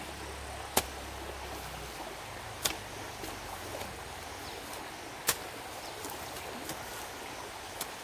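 Hoe chopping into muddy soil: three sharp strikes a couple of seconds apart, with a few fainter knocks between.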